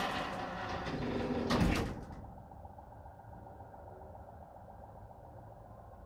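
Electric garage door opener driving an up-and-over garage door open: a mechanical rumble with a louder clunk about a second and a half in, after which the sound drops suddenly to a much quieter steady background.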